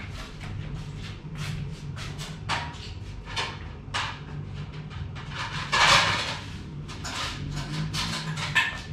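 Kitchen utensils and cookware being handled: a string of short clicks and knocks, with one louder half-second rush of noise about six seconds in, over a steady low hum.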